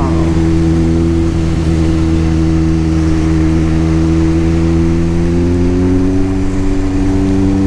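Kawasaki Z900's inline-four engine running at steady cruising revs over a steady hiss. The engine note rises slowly near the end as the bike picks up speed.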